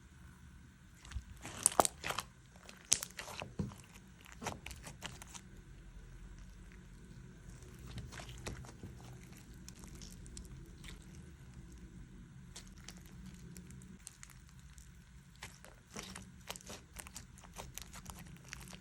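Slime being squeezed and pressed by hand, giving sharp crackling pops and clicks. The loudest come in a cluster about two seconds in; the middle is quieter, and more clicks follow near the end.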